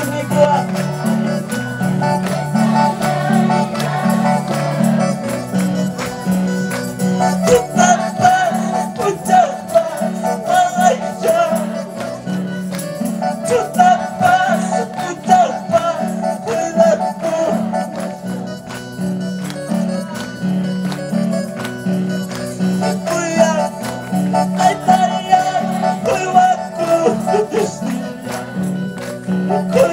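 Live Christian worship music: an electronic keyboard playing a repeating bass line under a singing voice, with a steady percussion rhythm.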